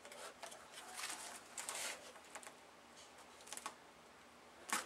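Hard plastic cup holder being handled and shifted under a drill bit: scattered light rustles and clicks, with a sharper click near the end.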